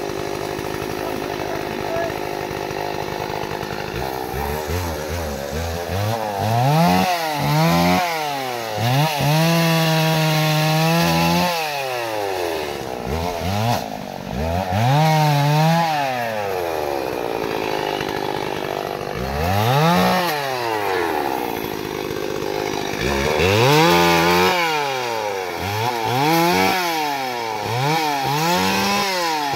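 Two-stroke chainsaw idling for the first few seconds, then revved again and again, its pitch rising and falling and held high for a second or two at a time as it cuts acacia wood. It revs in quick short bursts near the end.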